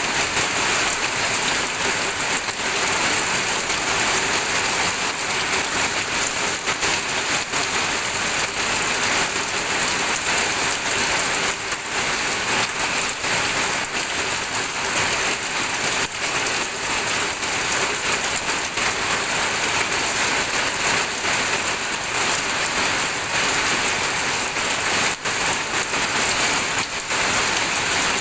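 Steady rain falling on a surface, an even dense patter of drops without a break.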